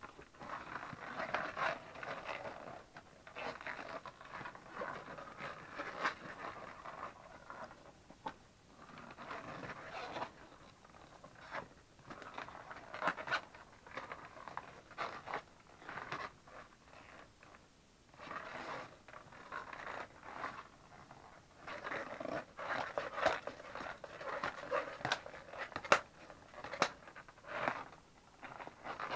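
Glossy black Hunter rubber wellington boots being squeezed, bent and rubbed by hand: the rubber squeaks and creaks in irregular bursts with short pauses.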